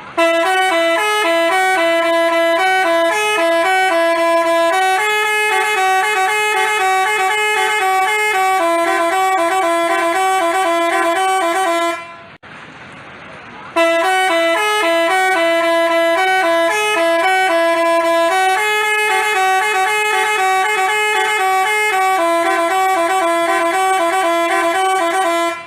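Basuri telolet musical horn playing a repeating multi-note tune in alternating high and low notes. It plays two long phrases with a short break about twelve seconds in.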